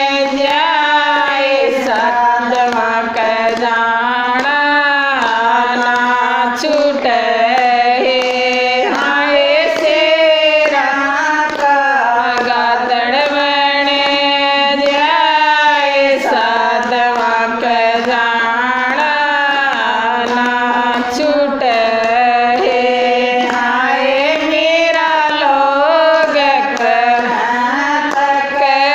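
A group of women singing a Haryanvi devotional bhajan together in unison, unaccompanied by instruments.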